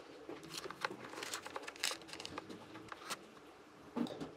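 Handling noise: scattered small clicks and rustles as hands work a red power cable with its crimped terminal, with a slightly louder knock near the end.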